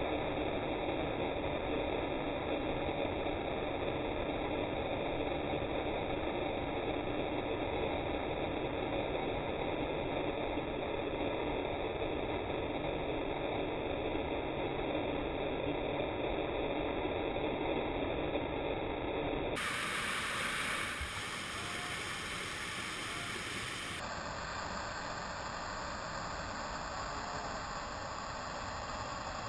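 Steady rushing noise of whitewater rapids, with no let-up; its tone changes abruptly twice about two-thirds of the way through, where the footage cuts between shots.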